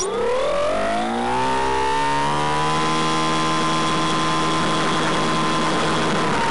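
Brushless electric motor and propeller of a Finwing Penguin RC plane spinning up at low throttle: its whine rises in pitch over about two seconds, then holds steady and dips slightly near the end, as the plane taxis slowly on the ground.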